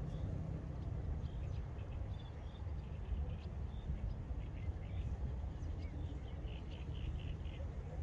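Low wind rumble on the microphone, with short high bird chirps in the background and a quick run of about five notes near the end.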